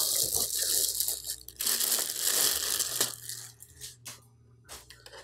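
Plastic bag crinkling and tearing as it is pulled off a soldering station's base unit, in two spells of about a second and a half, followed by a few light clicks and knocks of handling near the end.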